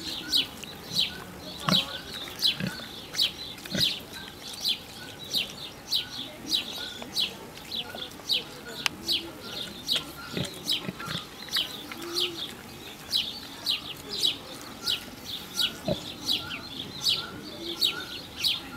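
Domestic pig smacking its lips and chewing contentedly: short wet clicks, about two a second, with hardly a break.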